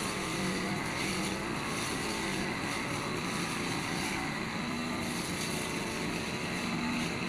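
Petrol brush cutter's small engine running steadily at working speed, its pitch wavering slightly as it spins the nylon trimmer line.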